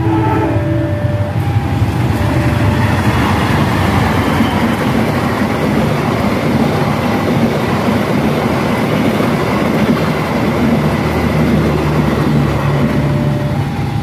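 Passenger train of coaches passing close by, a loud, steady rumble and rush of wheels running on the rails.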